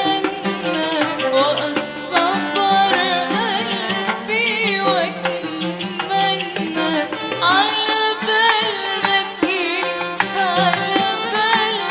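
Arabic song in an instrumental passage: a melody with wavering pitch played over a steady hand-drum rhythm.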